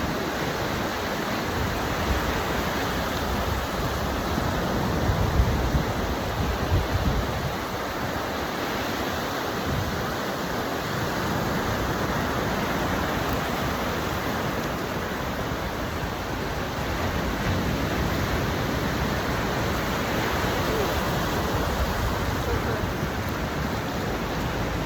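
Ocean surf washing in a steady wash of noise, with a louder surge of low rumble about five to seven seconds in.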